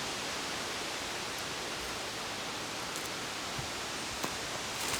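Steady, even background hiss with a few faint ticks.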